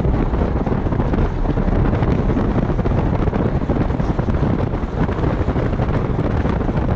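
Steady wind noise rushing over a microphone mounted on the outside of a moving Camaro, heaviest in the low end, with the car's road noise underneath.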